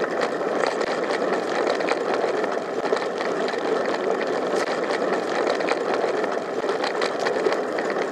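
Bicycle riding over a rough dirt-and-grass track: a steady rumble of tyres on the ground, with frequent small clicks and rattles from the bumps.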